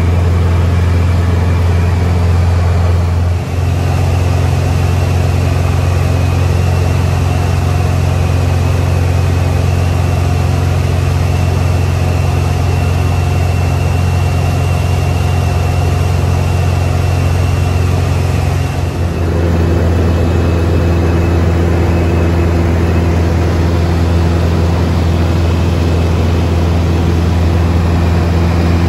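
Taylorcraft light aircraft's piston engine and propeller droning steadily in cruise flight, heard loud from inside the small cockpit. The drone shifts slightly in tone about three seconds in and again about nineteen seconds in.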